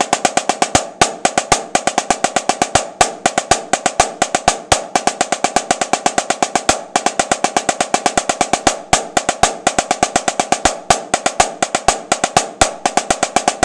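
Snare drum played with wooden sticks: a fast, even stream of stick strokes with regular accented notes, a rudimental snare passage played without a break.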